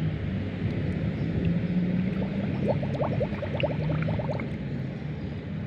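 A hand stirs water in a plastic bucket to dissolve magnesium sulfate, making sloshing sounds, with a quick run of bubbly gurgles about three to four seconds in. A steady low hum runs underneath.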